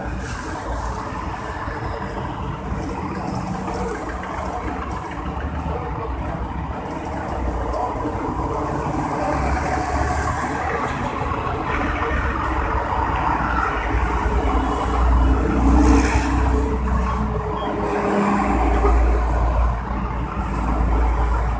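Steady background din with a deep low rumble that grows louder in the second half, over a faint steady hum.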